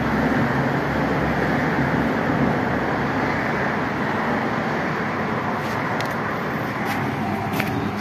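Steady rumbling outdoor background noise, with a few faint clicks in the second half.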